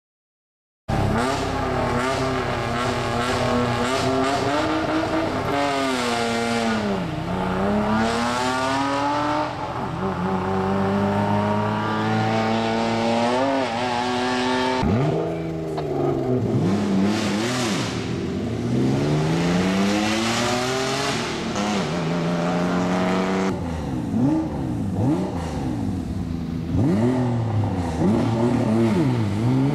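Cross-country rally car engines revving hard, the pitch climbing and dropping again and again through gear changes and passes. The sound starts abruptly about a second in and changes suddenly twice between shots.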